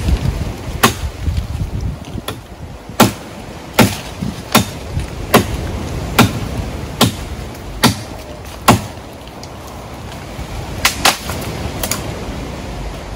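Repeated chopping strokes of a blade into a wooden tree limb, about one sharp chop a second, then a short pause and three more quick chops near the end.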